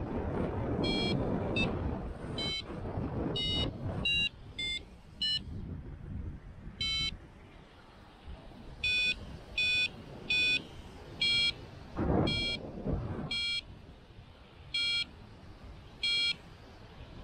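Paragliding variometer beeping its climb tone in short electronic beeps, the pitch shifting from beep to beep over the first few seconds, then a steadier run of beeps coming slightly further apart: the sign that the glider is rising in lift. Wind noise rushes on the microphone at the start and again in a brief gust around the middle.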